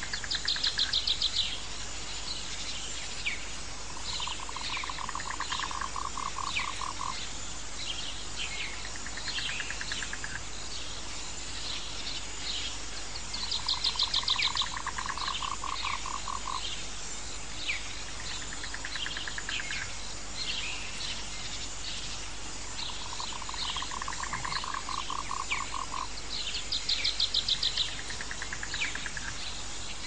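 Jungle ambience of animal calls over a steady hiss. A rapidly pulsed trill at a middle pitch comes three times, each lasting about three seconds. A shorter, higher pulsed trill also comes three times, and many short falling chirps run throughout.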